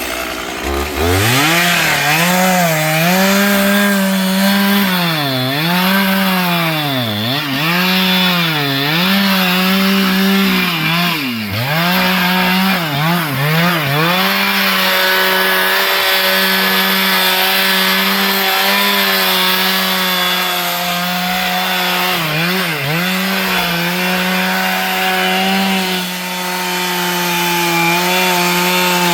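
Two-stroke chainsaw cutting wood. It revs up about a second in, and for the first half its revs dip and recover every second or so as it works. Through the second half it runs steadily at high revs.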